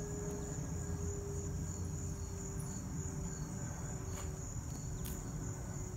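Steady, high-pitched insect chorus, with a low rumble on the phone's microphone and a couple of faint clicks near the end.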